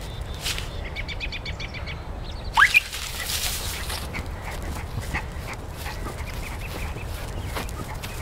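Footsteps crunching and rustling through grass and fallen leaves, with two short, high yips from a small dog about two and a half seconds in, the first rising quickly in pitch.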